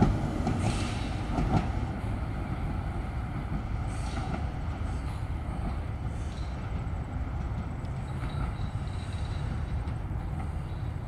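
Melbourne B2-class articulated tram rolling away along the track, a steady low rumble with a couple of sharp knocks in the first two seconds and a few faint high wheel squeals.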